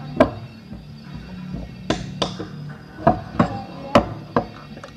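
About seven sharp, irregular knocks and taps over steady background music.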